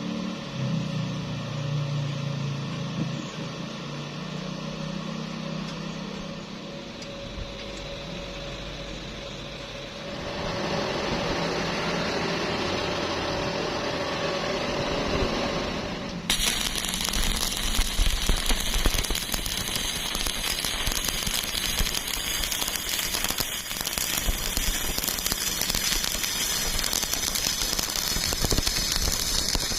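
Stick-welding arc crackling steadily, starting abruptly a little over halfway through. Before that, a lower, steady mechanical hum.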